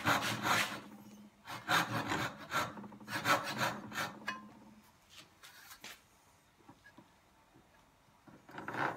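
Dovetail saw cutting wood in quick back-and-forth strokes, sawing the kerfs of half-blind dovetail sockets. Strong strokes run for about five seconds, then a few lighter ones, a pause, and another stroke just before the end.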